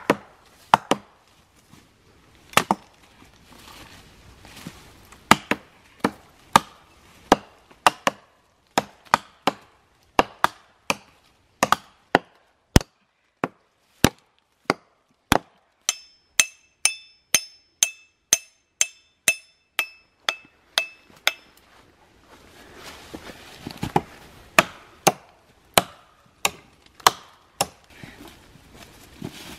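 Axes chopping into a fallen log: a long run of sharp wooden knocks, about two a second in the middle, more irregular at the start and end where several people strike at once among rustling dry leaves.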